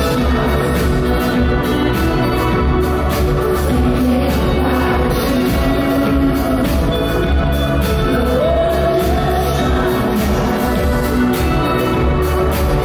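A live band playing loudly through a concert PA, heard from the crowd: drums, electric guitar and keyboards, with a woman singing into a microphone.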